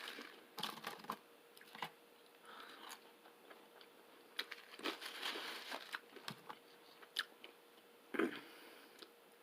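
Chewing a fried chicken sandwich at close range: soft, irregular crunching and mouth clicks, with pauses between.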